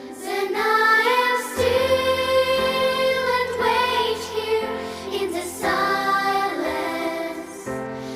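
Background music: a song with a singing voice over sustained chords.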